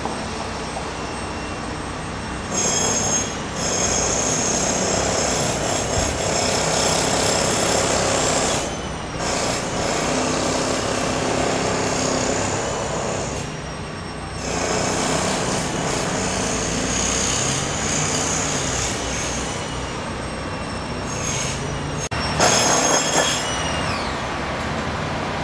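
Construction machinery running at a building renovation: a steady mechanical noise with a high whine that cuts out briefly a couple of times, then a short louder burst near the end.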